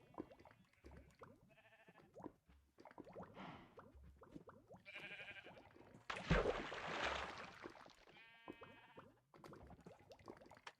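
Faint, off-mic throat clearing and hawking by a woman bringing up phlegm: several short strained voiced grunts, and a longer rasping hawk of nearly two seconds about six seconds in.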